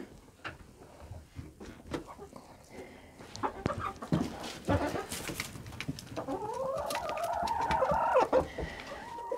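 Red Shaver laying hens clucking, with scattered knocks and taps in the first half and a longer drawn-out hen call over the last three seconds.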